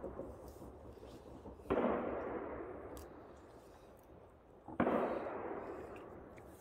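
Fireworks going off: two loud booms about three seconds apart, each rolling away in a long fading echo, while the echo of an earlier bang dies out at the start.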